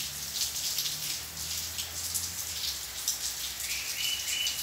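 Steady rain falling outside, with many small drops splashing on wet hard ground. A brief high whistle-like tone sounds near the end.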